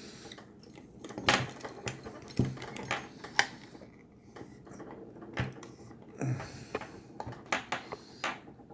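Irregular metallic clicks and clinks of a heavy steel padlock and lock-picking tools being handled as picking gets under way.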